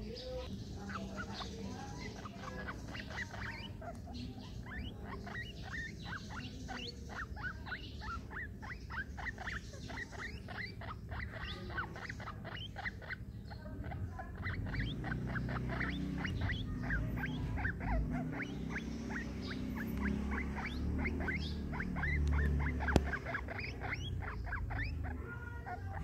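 Baby guinea pig squeaking, a rapid string of short high squeaks several a second. From about halfway a low rumble joins, and there is one sharp click near the end.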